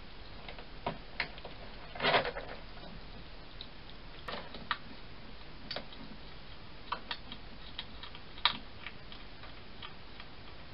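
A hedgehog moving and feeding at a plastic feeding box: scattered sharp clicks and ticks, with a brief louder scuffling rustle about two seconds in.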